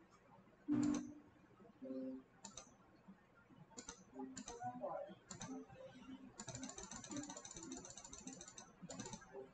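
Clicks from a computer mouse and keyboard: single sharp clicks every second or so, the strongest about a second in, and a quick run of rapid ticks lasting about two seconds in the second half.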